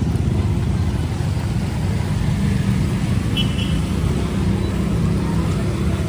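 Steady low rumble of city street traffic, with a short high beep about three and a half seconds in.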